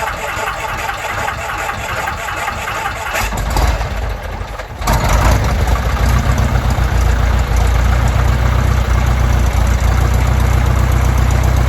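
Lycoming O-320 four-cylinder, air-cooled aircraft engine on its first start: the starter cranks it, it coughs and catches about five seconds in, then runs steadily at idle with the propeller turning.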